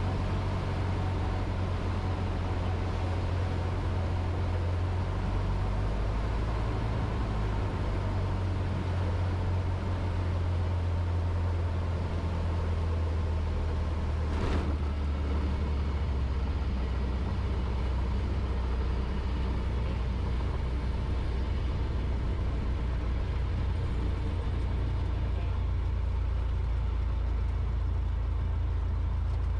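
Cessna 152's four-cylinder engine and propeller throttled back for landing, heard inside the cabin as a steady low drone with airflow noise through the flare and rollout. One brief knock comes about halfway through.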